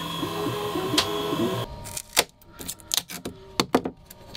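Hobby CNC milling machine's stepper motors whining in pitches that step up and down as the axes move. After the first second and a half this cuts off, and a handful of separate clicks and taps follow as the milled plastic part is handled on the machine bed.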